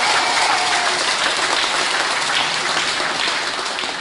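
Crowd applause: many people clapping together, thinning out near the end.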